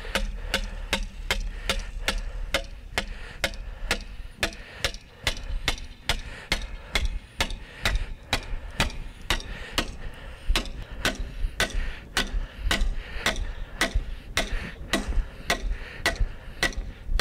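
Hammer driving a rebar pin into a wooden fence brace: steady metal-on-metal strikes, about three a second, that keep an even pace throughout.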